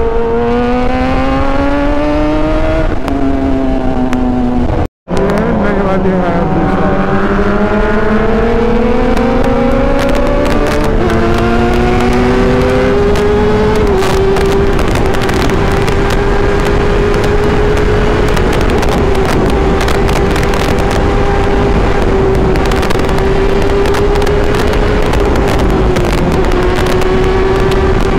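Kawasaki ZX-10R's inline-four engine heard from the rider's seat, climbing in revs through a couple of upshifts, then holding a steady drone at cruising speed from about halfway, with wind rush throughout. The sound cuts out briefly about five seconds in.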